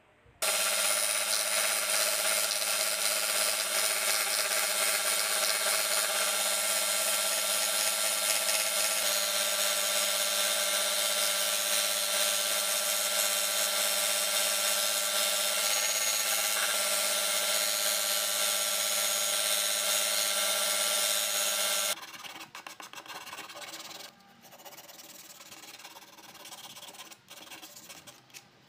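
Belt sander running steadily, its abrasive belt grinding against a carved wooden car body, then stopping abruptly about three-quarters of the way through. Quieter, uneven rubbing follows as sandpaper is worked by hand over the wood.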